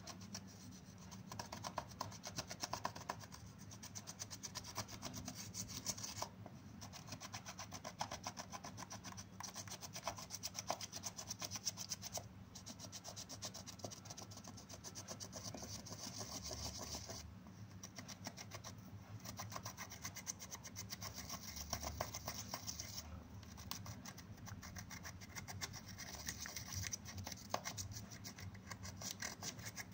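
Pressed eyeshadow powder being scraped and crushed out of its palette pans with a small stick: a continuous dry scratching and crumbling, broken by short pauses every few seconds.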